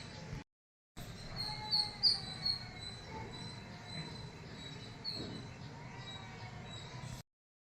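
Birds chirping over low background noise: short high chirps cluster about one to two and a half seconds in and again around five seconds. The sound cuts out completely twice for a moment.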